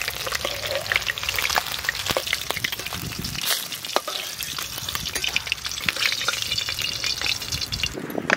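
Hot oil crackling and sizzling in a large metal karai over a wood fire, where pieces of fish have been frying, with a steady hiss full of small sharp pops. A brief knock near the end.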